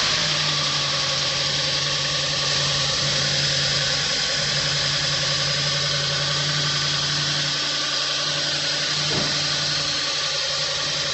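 Audi B8 S5 engine idling steadily in the first seconds after its first start following a carbon cleaning, cold, with the secondary air system running and misfires not yet cleared.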